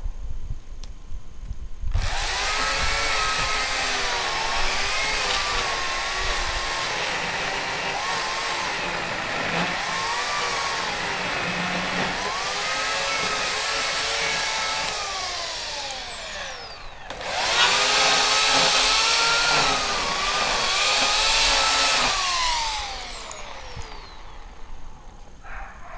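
Electric chainsaw with an 18-inch bar cutting into a silver maple trunk. Its motor whine dips and recovers as it works, then winds down with a falling pitch. It starts again shortly after for a few seconds and winds down once more near the end.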